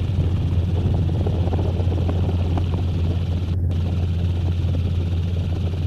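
Helicopter in flight, heard from inside the cabin: a loud, steady drone of rotor and turbine engine with a constant low hum.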